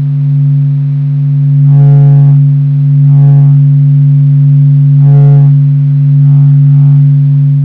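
Sonified solar vibrations: the Sun's oscillation signals converted into a deep, steady drone. Higher overtones swell in and out about four times over the steady low hum.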